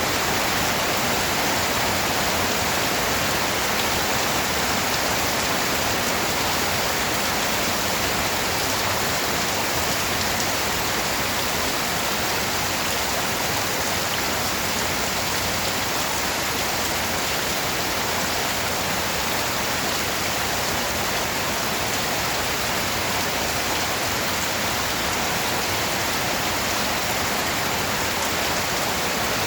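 Steady rain falling, an even, unbroken hiss with no thunder or other events.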